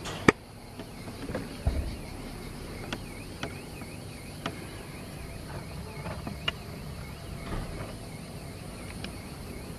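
A faint insect call, a thin high tone that wavers up and down about twice a second. It plays under scattered light clicks and knocks, the sharpest one just after the start.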